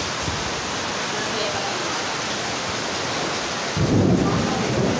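Heavy rain pouring steadily. About four seconds in, a sudden, louder low rumble comes in over it.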